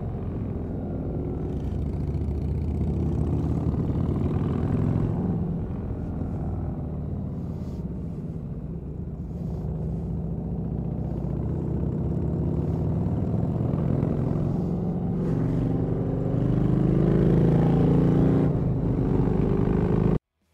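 Cruiser motorcycle engine running on the open road, its note rising as it accelerates through sweeping bends and loudest near the end, then cutting off abruptly.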